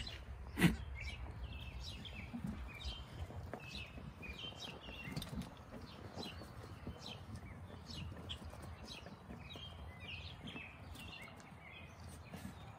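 Small birds chirping and singing over and over, with one sharp knock just under a second in.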